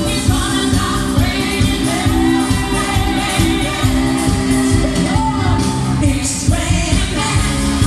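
Disco-pop medley music with a steady beat and a voice singing over it.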